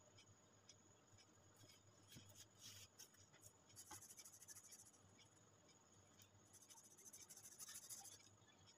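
Faint scratching of an orange colored pencil shading on paper in quick back-and-forth strokes. It comes in bursts, busiest about four seconds in and again from about six and a half to eight seconds.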